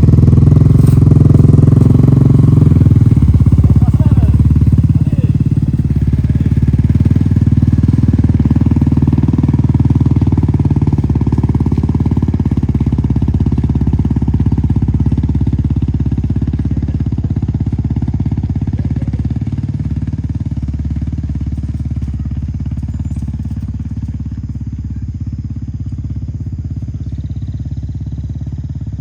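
Motorcycle engine pulling under load up a slope, its steady low drone fading gradually as it moves away.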